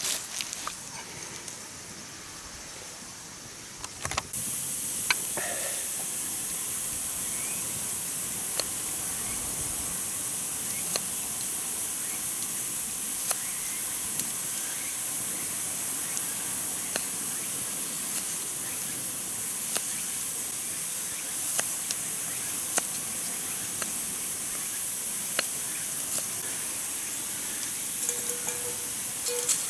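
Food sizzling in a frying pan over a campfire: a steady high hiss that starts suddenly about four seconds in, with scattered sharp crackles throughout.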